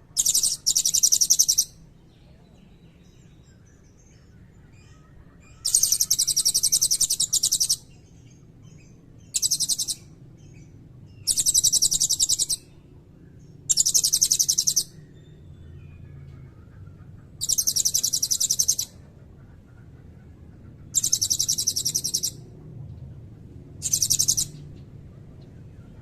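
Blue-crowned hanging parrot (serindit) calling in bursts of very high, shrill, rapid trilling chirps. There are eight bursts of half a second to two seconds each, separated by pauses of one to four seconds.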